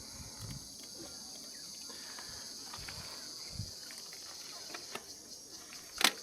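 Steady high-pitched chirring of insects in the bush, with a single sharp click or knock near the end.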